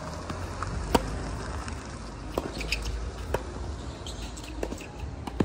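Tennis ball knocks in a hard-court rally: sharp pops of the ball off the strings and on the court, the loudest about a second in and three more spaced a second or two apart. Short high shoe squeaks on the court and a steady wind rumble on the microphone.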